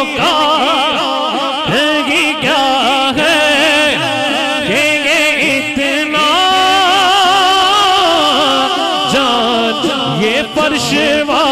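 Male naat reciter singing a long wordless, ornamented melodic passage into a microphone, the pitch wavering rapidly up and down, with one note held steady for a few seconds in the middle. A steady low tone runs beneath the voice.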